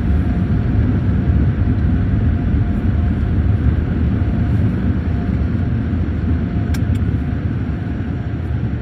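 Car wash dryer blowers running, a loud steady rumble of rushing air heard from inside the car's cabin, with a faint steady hum over it. Two quick light ticks come about seven seconds in.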